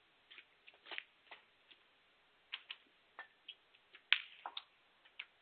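Snooker shot: the sharp click of the cue tip on the cue ball and of balls striking each other, among a scattering of short clicks, the loudest about four seconds in.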